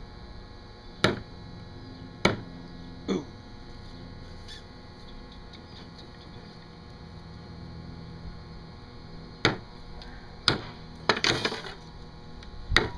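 Sharp knocks of a hatchet's steel spike struck into a coconut's eye to punch it open: three in the first few seconds, then after a pause about four more, with a quick run of them about eleven seconds in.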